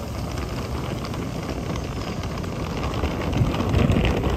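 Hard-shell suitcase's wheels rolling over stone paving: a continuous rattling rumble that gets louder near the end.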